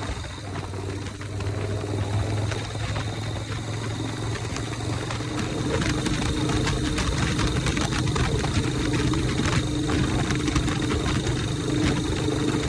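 Harley-Davidson Shovelhead V-twin engine on a 1983 chopper. It drops off higher revs at the very start, then runs steadily at idle or low revs.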